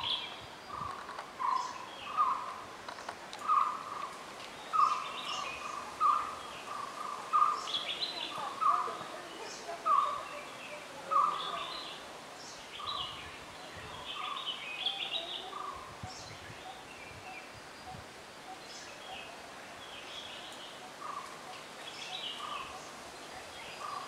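Wild birds calling over a steady faint hiss. One bird repeats a short mid-pitched note every half-second to second, thinning out about halfway through, while others give scattered higher chirps.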